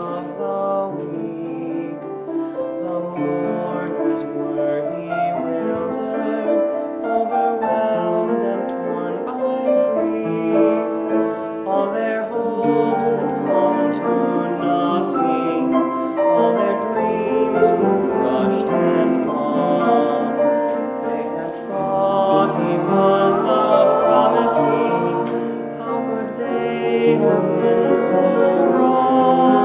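Mixed choir of young voices singing a hymn.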